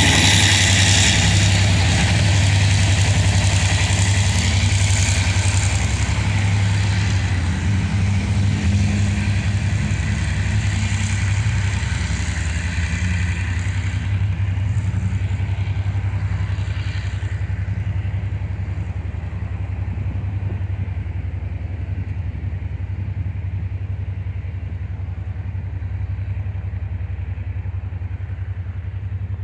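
Diesel freight locomotive's engine running with a steady low drone as the train pulls away, slowly fading as it recedes. A hiss of passing wagons is loud at first and dies away about halfway through, leaving the engine drone.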